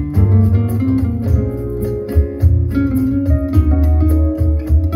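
Music with plucked guitar and a strong, steady bass line, played through a pair of Mordaunt-Short MS-904 floor-standing speakers with 5.5-inch aluminium-cone bass drivers and 1-inch titanium dome tweeters. Light, regular high ticks run over the top.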